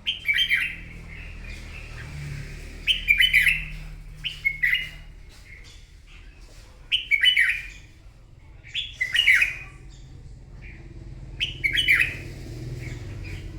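Red-whiskered bulbul singing its loud challenge song: about six short, loud warbling phrases a couple of seconds apart. A low steady hum runs underneath.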